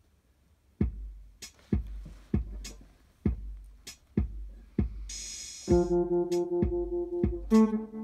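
Electric guitar song intro: about a second in a steady beat of low thuds and clicks starts, and near the middle ringing guitar chords come in over it, changing chord about two seconds later.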